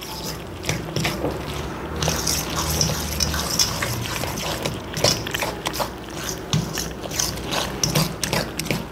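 Batter being stirred in a stainless steel bowl: a utensil clicks and scrapes against the metal bowl many times, irregularly, through the thick cheese-and-egg mixture.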